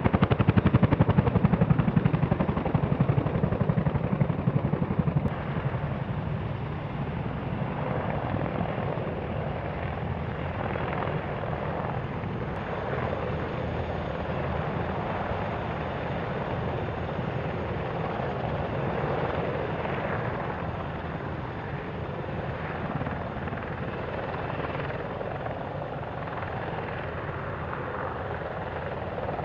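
Military helicopter rotors and turbines. An NH90 hovering low makes a loud, fast rotor beat. About five seconds in this gives way to a steadier, slightly quieter mix of a CH-47 Chinook running its twin rotors on the ground and an NH90 flying nearby.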